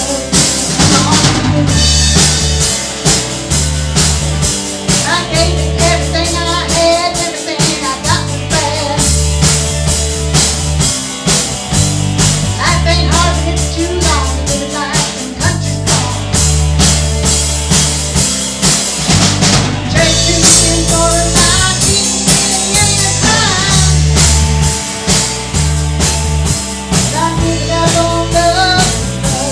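A small rock band playing live in a room: drum kit, electric guitar and electric bass, with a woman singing lead into a microphone.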